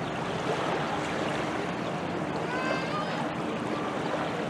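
Steady wind and small waves lapping on a sandy shore. A brief high call sounds about two and a half seconds in.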